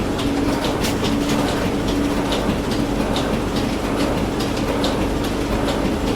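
Printing machine running, a steady mechanical hum with a regular clicking clatter of about three clicks a second.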